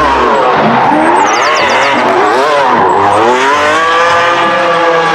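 Ferrari sports car drifting with its tyres screeching, the engine revs rising and falling and then holding steady at high revs in the second half.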